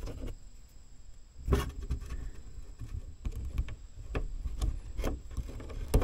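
Small metal parts of a Jeep door lock cylinder being handled and fitted by hand: light clicks and rubbing, with a sharper click about one and a half seconds in and another near the end.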